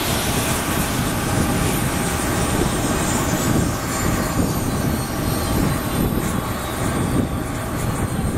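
Aircraft engines running on the ramp: a steady rumble, with a faint high whine sliding down in pitch over the first several seconds.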